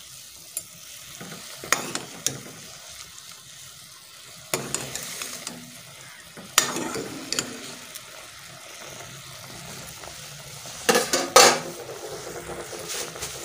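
A metal spoon stirring and knocking against a metal cooking pot as it turns a block of instant noodles in hot water, with a steady hiss underneath. The knocks are scattered, and the two loudest come close together near the end.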